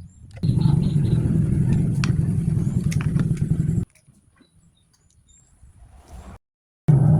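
Hand angle grinder motor running at full speed for about three and a half seconds, then cutting off abruptly; it starts up again near the end.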